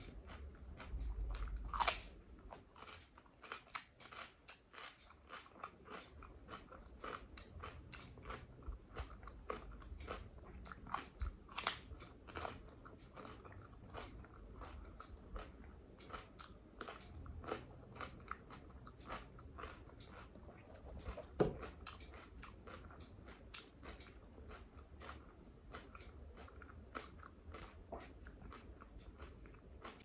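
Close-up crunching and chewing of raw cucumber: repeated crisp bites and wet chewing at an irregular pace. The loudest bites come about two seconds in and again around twenty-one seconds in.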